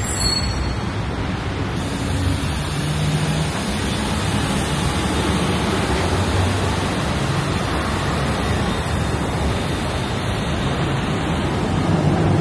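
Busy city road traffic passing steadily: a low engine hum under a constant wash of tyre and air noise.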